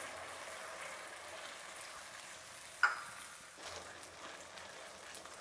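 Manchurian sauce sizzling softly in a nonstick wok as a cornflour slurry is poured in and stirred through with a silicone spatula, the sauce thickening. There is one short tap about three seconds in.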